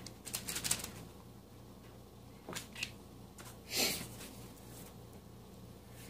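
Plastic plunger cookie cutter clicking as it cuts and pushes out pie-crust dough, with parchment paper rustling under the hands: a quick run of clicks under a second in, two short sounds about two and a half seconds in, and the loudest rustle near four seconds.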